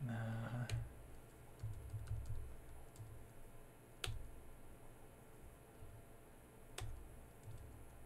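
Computer keyboard keys pressed now and then: three sharp clicks a few seconds apart, with soft low thuds between them.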